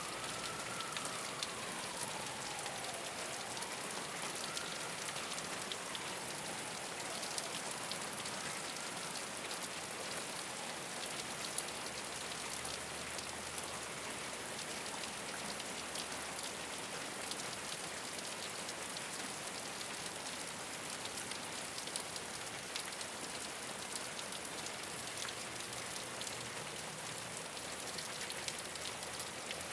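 Steady rain falling on a rooftop, a dense even patter of drops. In the first several seconds a faint siren wails up and down, fading out after about nine seconds.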